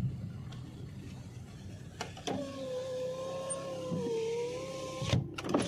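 Car's electric window motor whining steadily for about three seconds, then a knock as it stops, over the car's low cabin hum.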